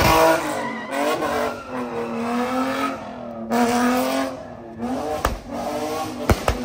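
Car engine revving up and down again and again with tires squealing, as in a drift or donut. A few sharp cracks come near the end.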